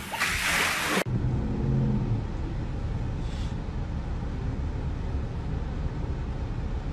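A loud rushing hiss that cuts off suddenly about a second in, then the steady low rumble of a car driving, heard from inside the cabin.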